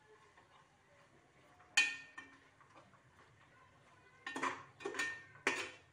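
A steel spatula stirring frying onions in an aluminium pressure cooker: one sharp ringing clink against the pot about two seconds in, then three scraping strokes near the end.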